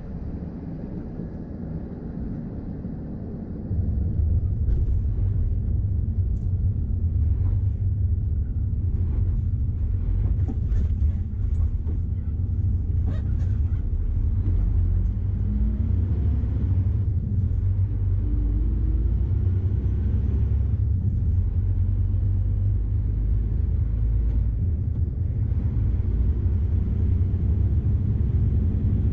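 Scania R440 truck's six-cylinder diesel engine and road noise heard from inside the cab, a steady low rumble that grows louder about four seconds in as the truck pulls harder. Occasional light clicks and rattles sit above the rumble.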